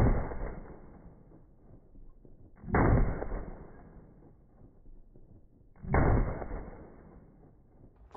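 Three single shots from a Micro Draco AK-pattern pistol in 7.62×39mm, about three seconds apart, each a sudden bang that trails off over a second or so.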